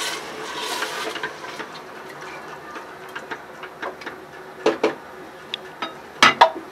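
A long spoon stirring a watery mutton and chana dal curry in a pressure cooker, with light clicks and a few sharper knocks of the spoon against the cooker's metal wall, the loudest two pairs coming past the middle and near the end.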